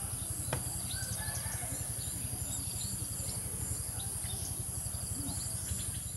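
Rural outdoor ambience: a steady high-pitched insect drone with scattered bird chirps and short trills, over a low, rapid fluttering rumble.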